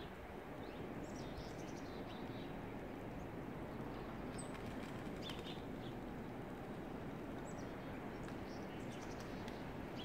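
Small songbirds giving short, high chirps in a few scattered bunches over steady outdoor background noise.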